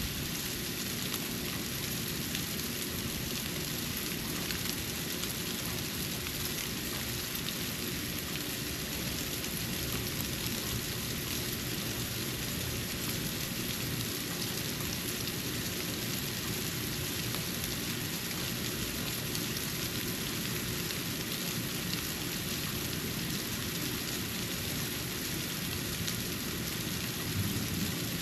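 Falling snow pattering steadily on a porch: an even hiss made of many fine ticks, with a low rumble underneath.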